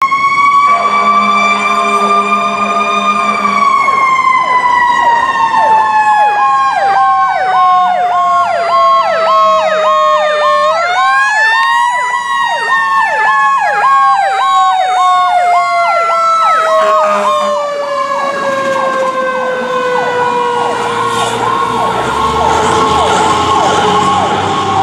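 Fire engine sirens from an aerial ladder truck responding with lights and sirens. One siren slowly falls in pitch, is swept back up about eleven seconds in, then falls again. A second siren yelps rapidly up and down about twice a second through the middle.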